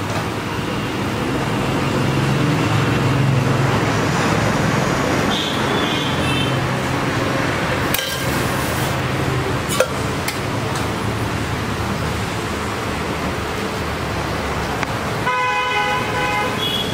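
Street traffic noise, a steady rumble of passing vehicles. A vehicle horn honks near the end, and there are a couple of sharp clicks in the middle.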